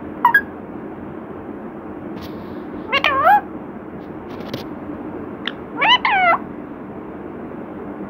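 Rose-ringed (Indian ringneck) parakeet calling: a brief chirp at the start, then two short calls about three seconds apart, the first rising and falling in pitch, the second sliding down.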